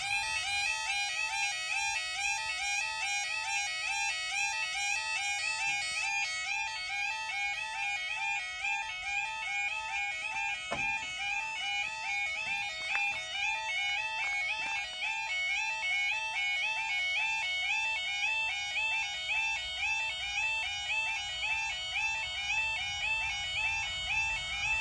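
Railway level crossing audible alarm sounding continuously: a rapid, evenly repeating electronic warble, warning road users that a train is approaching while the barriers are down.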